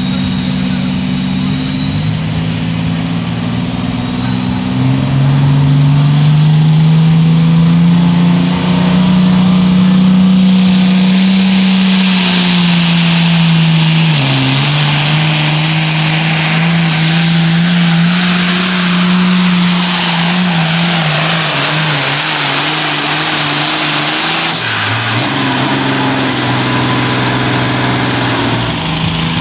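Turbocharged diesel hot farm tractor (466 cubic-inch class) pulling a sled at full throttle: the engine holds high, steady revs with a turbo whine, its pitch sagging briefly about halfway through. Near the end the revs drop as the pull finishes and the turbo whistles down in a falling whine.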